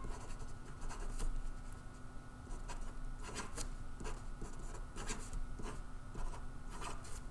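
Marker pen writing on paper: a string of short scratching strokes as letters, circles and connecting lines are drawn.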